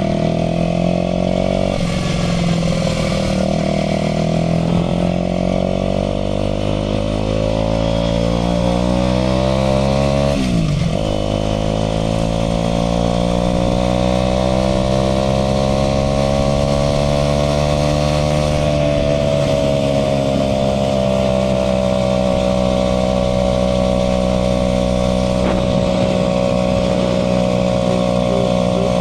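Aprilia RS4 125's single-cylinder four-stroke engine running under way. About ten seconds in the pitch drops sharply and picks up again, like a gear change. The note then climbs steadily for several seconds and levels off at a steady pitch.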